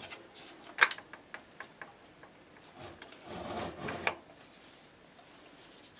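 Handling noise from the metal chassis of a Tektronix 485 oscilloscope being moved on a workbench: a sharp knock about a second in, a few light ticks, then a scraping rub about three to four seconds in that ends in a click.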